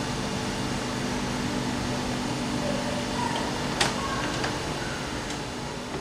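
A DB class 426 electric multiple unit standing at the platform, humming steadily with several held tones. A sharp click comes a little under four seconds in, followed by a few fainter ticks.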